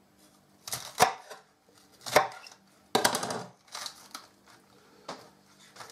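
Chef's knife cutting the core out of an iceberg lettuce half on a cutting board: several separate crisp crunches and knocks, spaced unevenly about a second apart.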